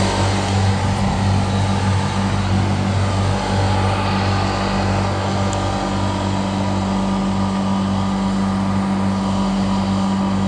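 Steady, loud hum of running rooftop machinery: a constant low drone with a higher steady tone above it.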